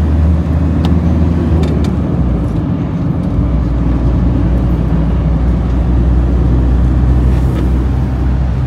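Camper van driving: a steady engine and road drone, with the engine note changing about three seconds in.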